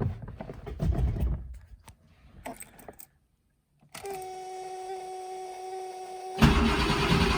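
Cold start of a 1987 Porsche 911's air-cooled flat-six: a steady electric hum for about two seconds once the key is on, then the starter cranks for about a second and the engine catches right at the end. Brief handling and rustling noises come first.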